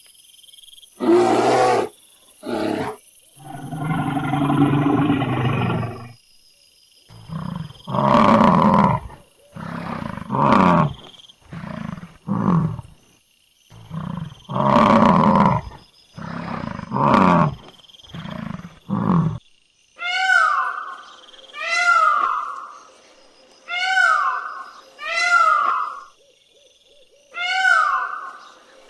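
A large animal giving a series of loud, deep roaring calls, then, from about two-thirds of the way in, a cat meowing over and over, about one short falling meow a second.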